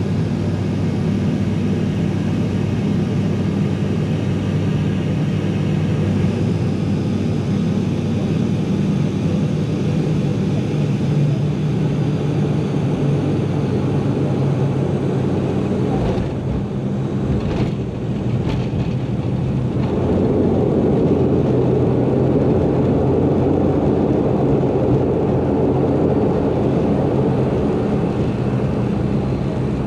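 Inside the cabin of an ATR 42 twin turboprop on landing: a steady engine and propeller drone, with a few thumps a little past halfway as the wheels touch down. About two-thirds of the way through the engines grow louder, as the propellers are put into reverse to slow the aircraft on the landing roll.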